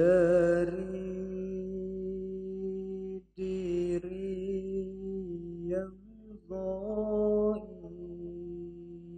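A male voice singing a syair (a sung Malay/Arabic-style poem) into a microphone: slow, drawn-out held notes with a wavering vibrato at the start, and two short breaks for breath.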